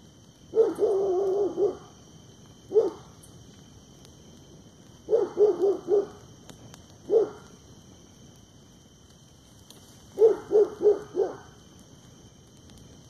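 A dog barking: one drawn-out bark near the start, then single short barks and two runs of four quick barks.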